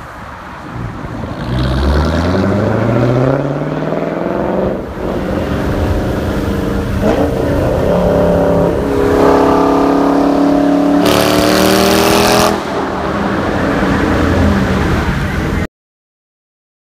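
Straight-piped 5.7-litre Hemi V8 of a 2012 Dodge Challenger R/T (mufflers and resonators removed, stock cats) pulling hard through the gears of its six-speed manual. The exhaust note climbs with the revs, drops back at gear changes about five and seven seconds in, climbs again and then holds. A brief burst of hiss comes about eleven seconds in, and the sound cuts off suddenly near the end.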